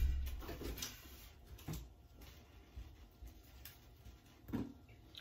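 Soft rustles and light knocks of a sheet of warqa pastry being folded into a small parcel on a large aluminium tray, with a dull thump at the start and a few short taps spaced about a second apart.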